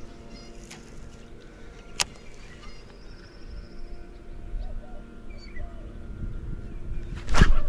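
Songbirds chirping faintly over a steady low hum, with a sharp click about two seconds in and a short, louder rush of noise near the end.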